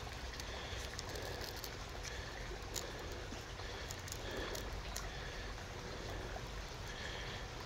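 A shallow creek trickling steadily, with a few faint clicks from a steel knife cutting into a cattail drill spindle.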